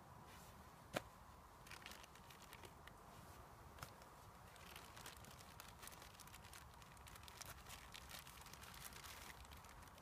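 Faint crinkling and crackling of a small clear plastic bag being handled and picked open, with one sharp click about a second in.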